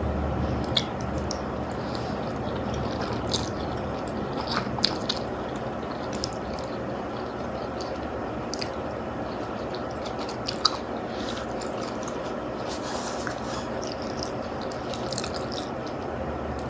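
A person chewing a mouthful of spaghetti and meatballs, with scattered small clicks over a steady background noise.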